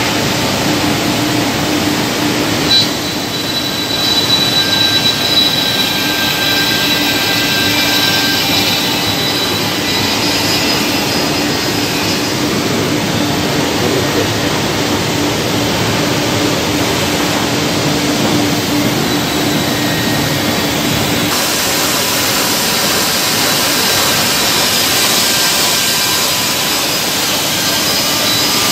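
E-Chan ETC-86S double-end cutting and milling machine running: a steady, loud mechanical whir with a low hum that stops about three-quarters of the way through.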